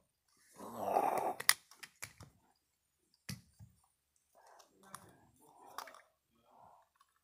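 A child's rough mouth-made animal noises for a toy bear, with sharp clicks of hard plastic animal figures knocking together. The loudest noise comes about a second in, the clicks follow, and fainter noises come near the end.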